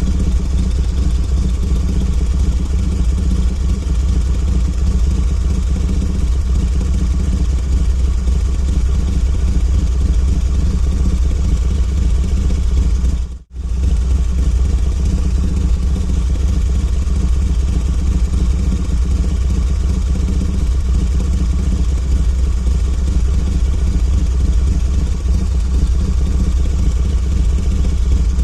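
Harley-Davidson motorcycle's V-twin engine idling steadily. About halfway through it cuts out for a moment, then resumes.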